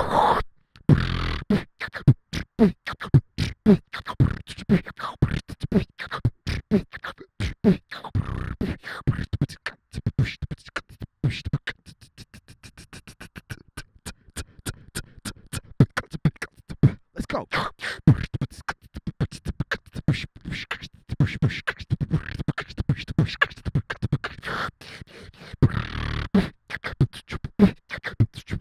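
Beatboxing into a handheld microphone: a fast, dense run of mouth-made kick, snare and click sounds with deep bass hits, thinning out and going quieter for a few seconds in the middle before building back up.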